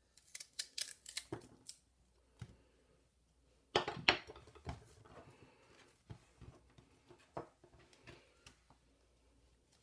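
Chef's knife slicing crisp Napa cabbage against a wooden cutting board: a quick run of crunchy cuts in the first two seconds, then a louder knock about four seconds in, followed by scattered soft taps and rustles as the sliced cabbage is pushed around the board.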